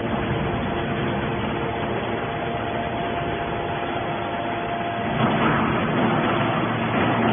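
Hydraulic scrap metal baler running: a steady mechanical noise with a held whine, growing louder and rougher about five seconds in.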